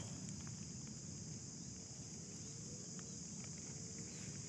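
Steady high-pitched chorus of crickets and other insects in a rice paddy, with a faint low rumble underneath.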